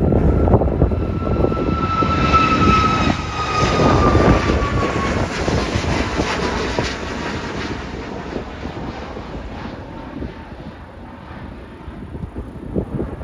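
An airliner passing close by. Its engines give a loud rushing noise with a high whine that slides steadily down in pitch as the aircraft goes past, then the sound fades away.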